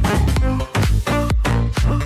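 Electronic dance music with a steady beat of about two strong hits a second.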